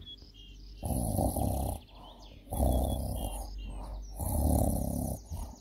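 A man snoring: three loud snores, each about a second long, coming roughly every second and a half. Faint bird chirps sound in the gaps between them.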